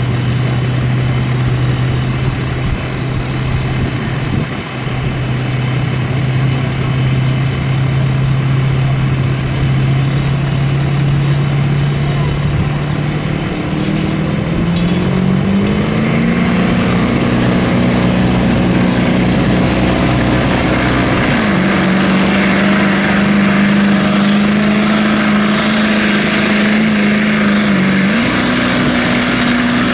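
Ford Super Duty pickup's diesel engine in a truck pull. It runs low and steady for about half the time, then revs higher as it drags the weight-transfer sled, its pitch dipping briefly twice. A high whine rises in and holds over it.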